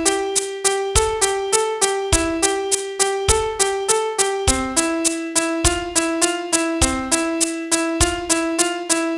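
Piano playing a pop-song melody one note at a time, about three notes a second, over a low note struck roughly once a second, with no singing.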